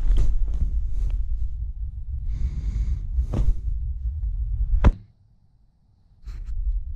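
Low rumbling handling noise and rustling bedding against a body-worn action camera's microphone, then a single sharp finger snap about five seconds in, after which the sound drops out for about a second before the rumble returns.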